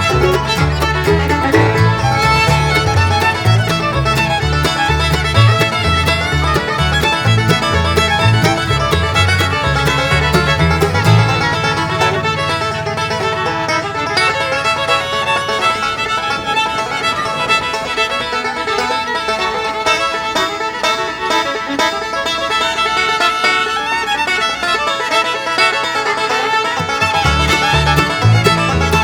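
Background bluegrass-style music with fiddle and plucked strings. The low bass line drops out a little before halfway and comes back near the end.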